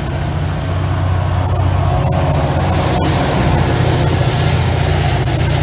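Caltrain commuter train of bilevel coaches passing, with a thin high wheel squeal that fades out about four seconds in. Underneath runs the steady low hum of the diesel locomotive pushing at the rear, which grows louder about two seconds in as it draws level.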